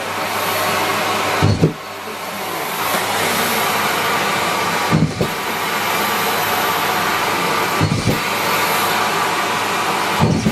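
Miele Complete C3 canister vacuum cleaner running steadily at full suction. About four times its hiss briefly drops with a short low thump as socks are pulled into the nozzle and hose.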